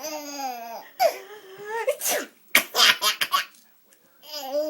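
A woman sneezes sharply about two seconds in, and a baby laughs at it in a run of short, breathy bursts.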